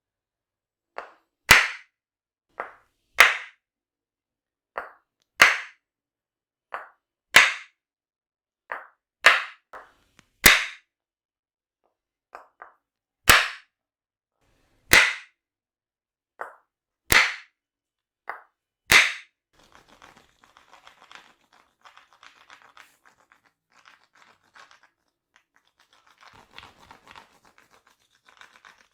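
Percussive massage strikes on the body, coming in pairs (a light hit, then a sharp loud one) about every two seconds for nearly twenty seconds. After that, faint rubbing and rustling.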